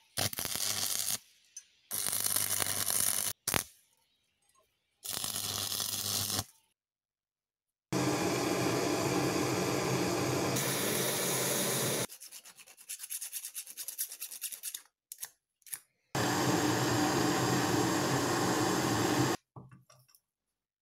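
Stick-welding arc crackling in several short bursts, cut abruptly, over the first six seconds. Then a handheld gas blowtorch hisses steadily for about four seconds. After that come scattered light clicks and another steady hiss of about three seconds.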